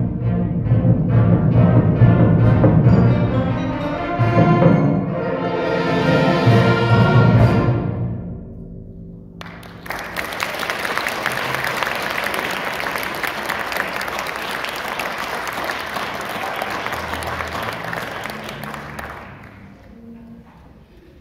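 High school symphonic band playing the loud closing bars of a piece, ending on a held chord that dies away about nine seconds in. Then the audience applauds for about ten seconds, fading out near the end.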